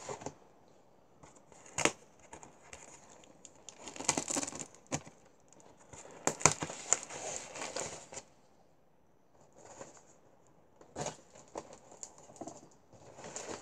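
Fixed-blade KA-BAR knife slitting brown packing tape on a cardboard box: the tape crinkles and tears, and the blade scrapes and taps on the cardboard in scattered bursts, with a lull about two-thirds of the way through.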